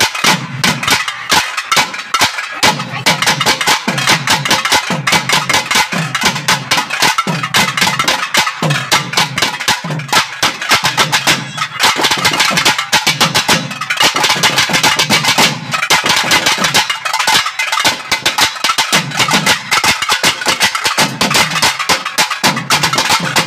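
Naiyandi melam folk ensemble playing, led by thavil drums: fast, dense, sharp strokes with a deep bass stroke landing about once a second.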